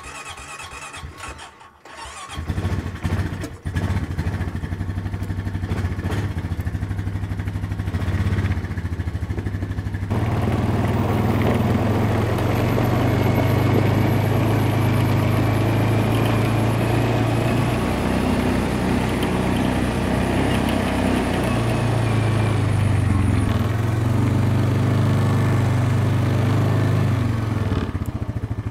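Four-wheeler (ATV) engine restarting: a couple of seconds of starter cranking, then it catches and idles. About ten seconds in it runs louder as the quad is ridden off, the engine note rising and falling with the throttle.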